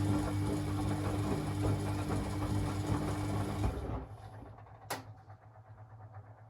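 Beko WA 1050 washing machine's drum motor turning the drum with a steady mechanical whir and hum, then stopping about four seconds in, as in the back-and-forth tumbling of a wash cycle. A sharp click follows about a second after it stops.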